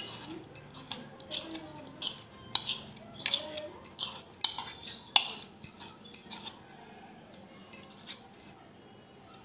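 A spoon scraping and tapping against a plastic bowl as thick semolina batter is scraped out, with a sharp click about every half second. The clicks thin out after about six seconds, leaving only a couple of faint taps near the end.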